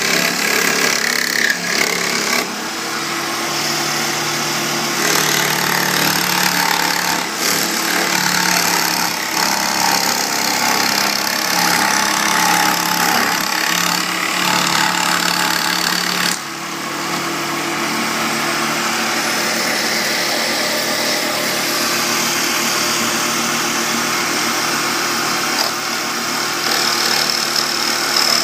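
A machine running steadily: a loud continuous mechanical rattle over a steady hum, dipping briefly twice.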